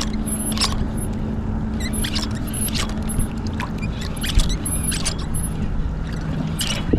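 Steady low motor drone with a low rumble underneath, and scattered short clicks on top.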